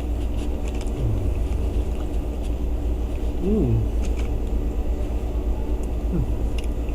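A steady low rumble throughout, with brief murmured voice sounds about a second in, midway and near the end, and faint scattered clicks.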